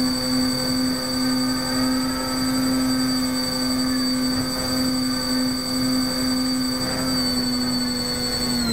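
Twin electric motors and propellers of an RC model plane (a twin-motor converted Multiplex EasyStar) heard from its onboard camera: a steady whine in flight over a rushing noise. Near the end the pitch dips a little as the throttle eases.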